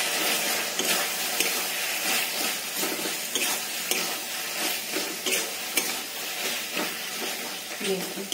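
Onions, tomatoes and spices sizzling in oil in a kadai while a spatula stirs them. The spatula scrapes and clicks against the pan at irregular intervals over a steady frying hiss.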